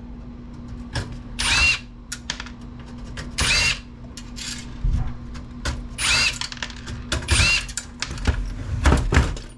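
Power drill-driver unscrewing the screws that hold a desktop computer's case fan, run in four short bursts with a rising whine. Sharp clicks and knocks come between the bursts.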